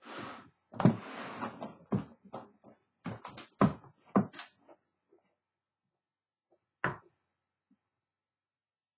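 Typewriter carrying case being handled and shut: a quick run of knocks, scrapes and clicks from the lid and latches, then one more knock about seven seconds in.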